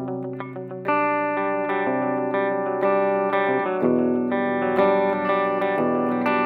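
Instrumental passage of a song: guitar chords held and changing every second or two, with no singing.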